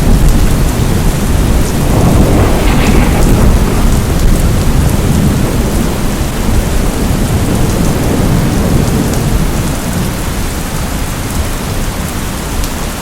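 Steady heavy rain with a continuous low rumble of thunder, the rumble easing slightly toward the end.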